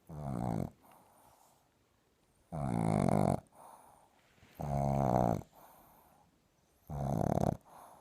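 Sleeping Boston Terrier puppy snoring loudly: four rattling snores, each under a second and roughly two seconds apart, each followed by a much fainter breath.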